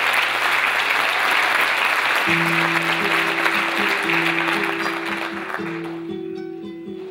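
Audience applause that fades away over about six seconds, while a flamenco guitar comes in about two seconds in, repeating low notes in a steady rhythm.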